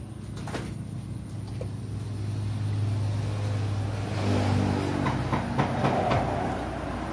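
A motor runs with a steady low hum that grows louder in the second half, with scattered clicks and scrapes from a knife working an eel on a wooden chopping block.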